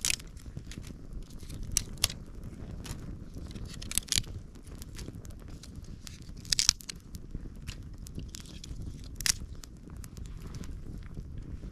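Small campfire of dry sticks crackling, with several sharp snaps and pops a couple of seconds apart, over a steady low rumble.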